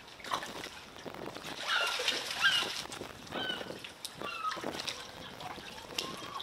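Water sloshing and lapping among concrete pier pilings, with four short, downward-slurred bird calls between about two and five seconds in.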